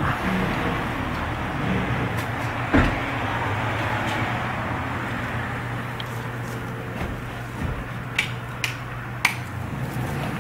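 Steady road traffic noise from the street below. One sharp knock comes about three seconds in, and a few short clicks come near the end.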